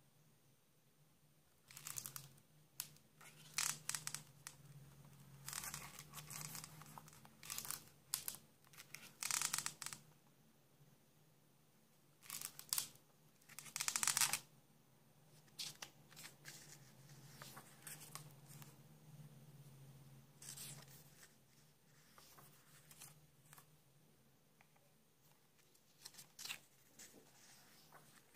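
Paper pages of a hardcover book being turned by hand: a series of short rustles a few seconds apart, the loudest about fourteen seconds in, over a faint steady low hum.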